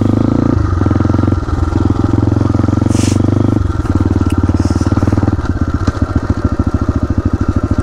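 Motorcycle engine running while riding off, its note shifting several times with the throttle, then the firing pulses slowing over the last couple of seconds as the engine drops in speed.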